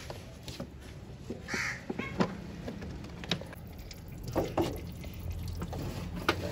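Scattered sharp clicks and knocks from hands working on car engine parts during an oil change, over a low steady hum. A short harsh call sounds about a second and a half in, and a couple more rough bursts come near the middle.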